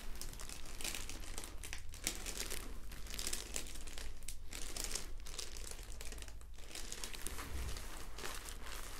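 Continuous crinkling and rustling, irregular and crackly, as the patient shifts about on a chiropractic treatment table.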